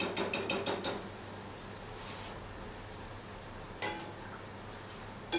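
A metal utensil clinking quickly against a bowl while dry flour, baking powder and baking soda are stirred together, about seven clicks a second for the first second. Then two single clinks of kitchenware, one about four seconds in and one near the end.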